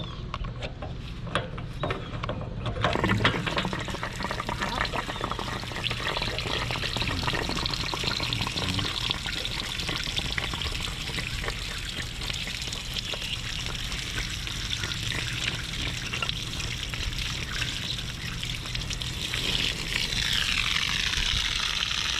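A socket wrench ratchets a few times as the anode rod is backed out of an RV water heater. About three seconds in, water starts pouring out of the tank through the rod's opening and keeps gushing steadily, draining the tank.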